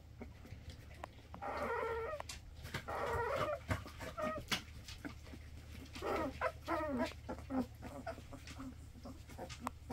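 Young Pitsky–Corgi cross puppies whimpering and squeaking in short bouts, with a longer wavering whine about six to seven seconds in.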